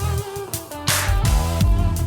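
A short excerpt of a song with a deep bass line, drums and guitar.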